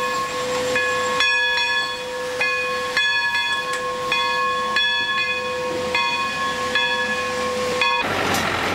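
Steam locomotive whistle blowing one long blast, its upper tones coming and going as the whistle cord is pulled and eased. It cuts off about eight seconds in.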